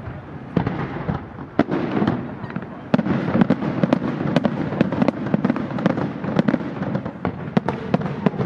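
Aerial fireworks display: shells bursting in many sharp, irregular bangs, several a second, over a continuous dense rumble of the barrage.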